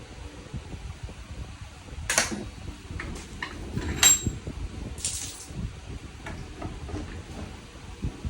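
Metal parts and tools being handled on a workbench: a few clinks and scrapes, the loudest a sharp ringing clink about four seconds in, over a steady low hum.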